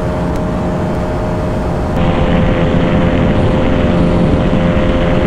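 Single-cylinder sport motorcycle engine held at steady high revs at its limited top speed, with heavy wind rush over the helmet-mounted microphone. About two seconds in, the engine note drops slightly and the sound gets a little louder.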